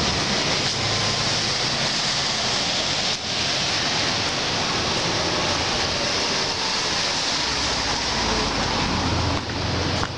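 Steady hiss of street traffic on a wet road, tyres swishing on the wet pavement as cars pass.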